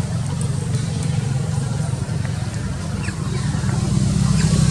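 Low, steady rumble of a motor vehicle engine running nearby, growing a little louder about four seconds in, with a few faint high chirps above it.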